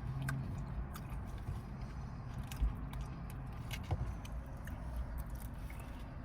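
Steady low hum of a car cabin with the engine running, with a few faint clicks and a small knock from handling a takeout box and utensils.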